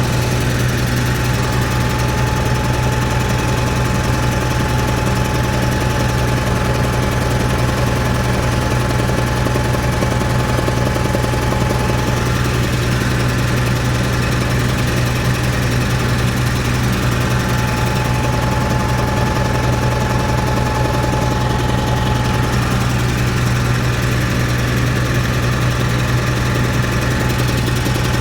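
Caterpillar 3306 natural-gas inline-six engine running steadily with a misfire. One cylinder, number 6, is dead, with spark going into its coil but none coming out, which the mechanic takes for a failed ignition coil.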